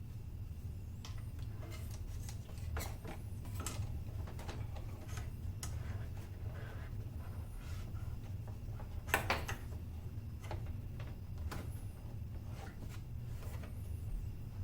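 Scattered light clicks and knocks, like hand tools and parts being handled, over a steady low hum; the loudest is a short cluster of knocks about nine seconds in.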